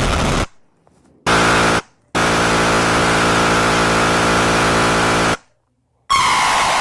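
A run of separate loud, noisy sound effects, each cutting in and out abruptly with short silent gaps between them: a half-second burst, then a steady three-second stretch, then another starting near the end.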